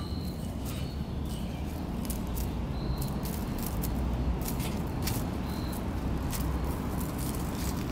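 Outdoor ambience: a steady low rumble, with a few short high chirps and scattered light ticks and rustles.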